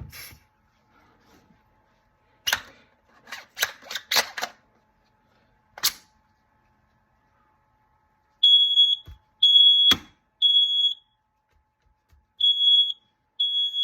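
A few short hisses of aerosol smoke-test spray, then a smoke alarm sounding: a high single-tone beep about half a second long, three times a second apart, a pause, then the triple pattern starting again. This is the temporal-three alarm pattern, the detector reacting to the test smoke. One sharp click falls between the beeps.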